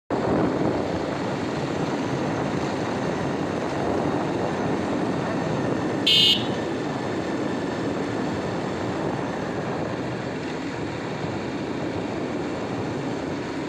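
Bajaj Pulsar motorcycle being ridden along a road, its engine and road noise running steadily, with one short horn beep about six seconds in.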